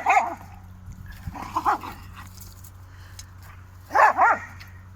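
Two dogs squabbling at play, barking and yapping in three short groups of two or three barks, one about a second and a half in and another near the end: one dog wants to play and the other snaps back at it.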